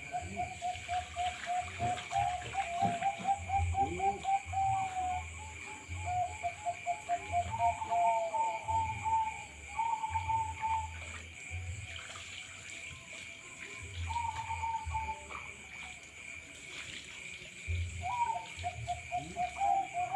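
Several zebra doves (Bangkok-type perkutut) cooing, their rapid pulsed coos overlapping in runs that break off and start again, thinning out around the middle.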